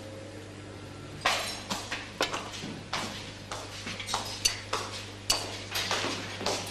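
Cutlery and dishes clinking: a run of irregular sharp clinks and knocks that begins about a second in, over a steady low hum.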